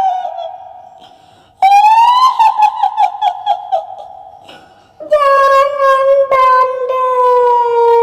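Shrill, high-pitched woman's wailing in the manner of a kuntilanak ghost voice, heavily echoed: a rising cry about one and a half seconds in that breaks into quick wavering pulses, then a long held cry from about five seconds in that slides slowly down in pitch.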